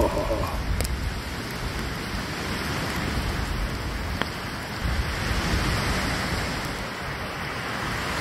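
A campfire crackling briefly, then small lake waves washing steadily onto a sandy beach, with a single sharp click about four seconds in.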